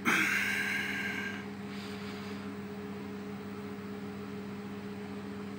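Steady low electrical hum with an even hiss from running computer and radio equipment. A higher multi-tone sound fades away over the first second and a half.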